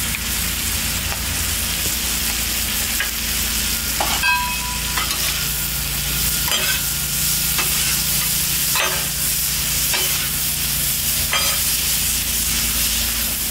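Cubed brisket, freshly doused with taco sauce, sizzling steadily on a hot steel flat-top griddle. Metal spatulas scrape and clack against the griddle now and then as the meat is tossed, over a steady low hum.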